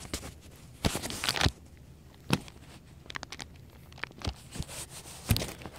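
Light handling noise from a laptop LCD panel and its display cable: a short rustle about a second in, then scattered sharp clicks and taps as the unplugged connector and cable are moved about.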